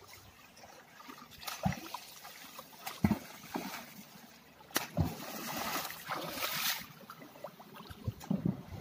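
Water splashing and sloshing, with several dull knocks spread through it, the loudest about three seconds in, and a longer swell of splashing a little past the middle.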